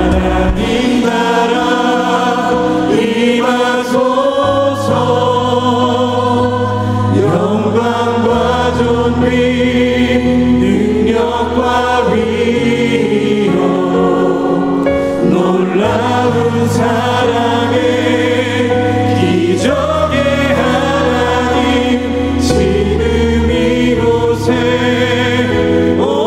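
Contemporary worship song sung in Korean by several singers together, with band accompaniment including long held bass notes.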